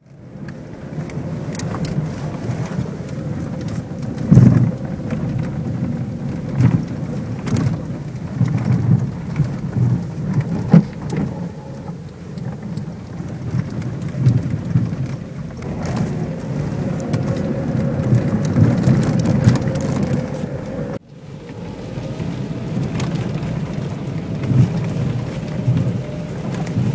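Renault Megane II driven over potholes and rough road: a steady rumble from tyres and body with repeated knocks, some sharp and loud, from the subframe area on both sides. The knocking persists with all-new suspension and steering and, by the owner's judgement, does not come from the steering column.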